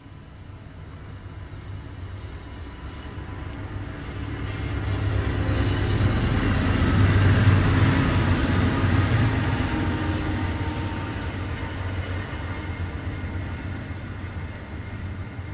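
Two Norfolk Southern diesel locomotives approaching and passing at the head of an intermodal train, their engine drone growing loud about halfway through and then easing off as double-stack container cars roll by.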